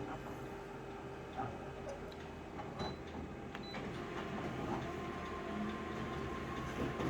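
Steady electrical hum with a few scattered faint clicks; a steady higher tone joins about four seconds in.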